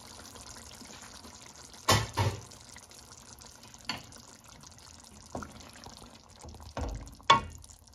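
Thick chicken and chickpea curry bubbling in an aluminium pot, with a few sharp pops. Near the end a wooden spoon stirs it, with a thud and a knock against the pot.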